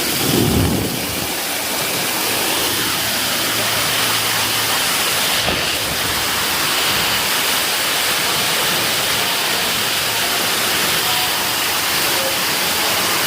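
Steady rushing and splashing of falling water at a water park.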